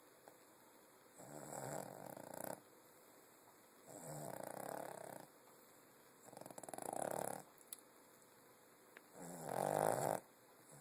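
A pet snoring: four snores about every two and a half seconds, each lasting about a second, the last one the loudest.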